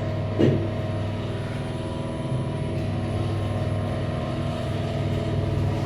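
Steady mechanical hum inside a passenger lift car while it travels, with the car's ventilation fan running.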